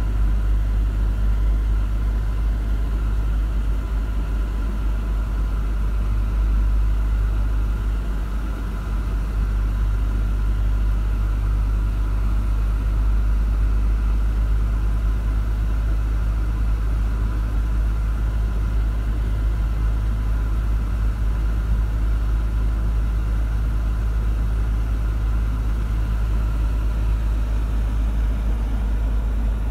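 Steady low rumble of a Mercedes-Benz car driving along a road, heard from inside the cabin: engine and tyre noise at an even cruising speed.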